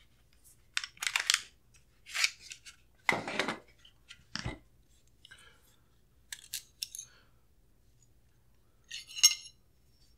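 Glock pistol being taken apart by hand: scattered clicks, scrapes and rattles of the slide coming off the frame and of small parts handled, with one sharp click about four and a half seconds in and a brief ringing metallic clicking near the end as a tool works at the back of the slide.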